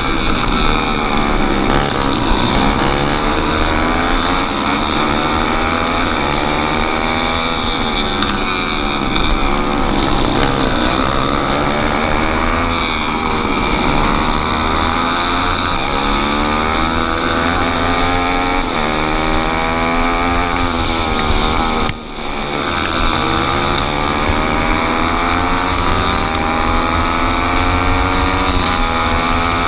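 Four-stroke racing kart engine heard from on board at full race pace. It revs up repeatedly and drops back as the kart brakes and accelerates through the corners. The sound cuts out for an instant about 22 seconds in.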